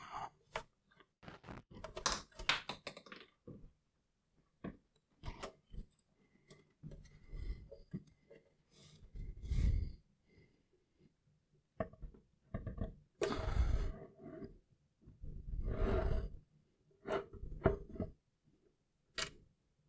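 Handling noises of a heavy telescope tube's dovetail bar being worked into an equatorial mount's saddle: scattered clicks and knocks, with two longer rubbing sounds about thirteen and sixteen seconds in.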